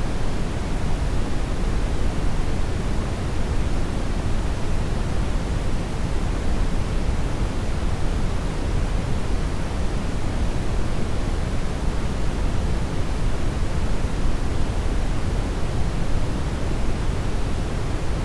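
Steady electronically generated noise: an even, unchanging hiss with no tones or events. It is fuller in the lows and thins toward the highs.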